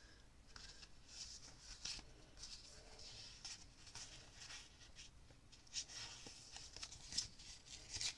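Faint, irregular rustling and crackling of a strip of collage paper being handled and shaped by hand.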